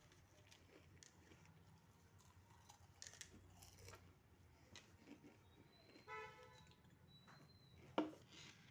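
Near silence: quiet room tone with scattered faint clicks, a brief honk-like tone about six seconds in, and a single sharp click near the end.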